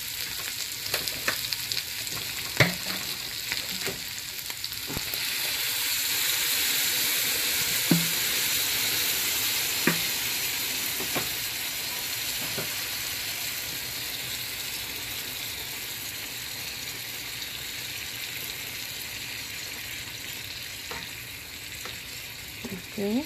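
Sliced onions sizzling in hot oil in a frying pan, with a few sharp knocks of a spatula against the pan. About five seconds in the sizzle grows louder as a blended tomato salsa is poured into the hot pan, then slowly eases off as it is stirred.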